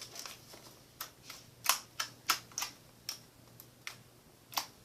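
Slime containers being handled: about a dozen sharp, irregular clicks and taps as one tub is put away and the next is picked up.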